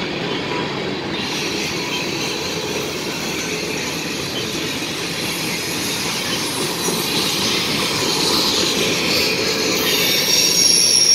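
Freight cars of a mixed freight train rolling past: a steady rumble and rattle of steel wheels on rail, growing a little louder toward the end. Near the end, a high, steady metallic wheel squeal comes in over it.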